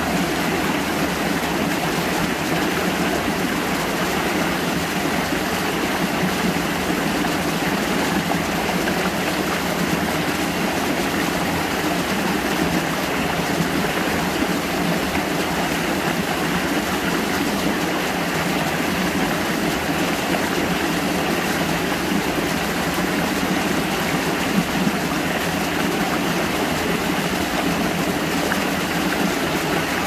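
Creek water pouring over rocks in a small cascade, a steady rushing splash.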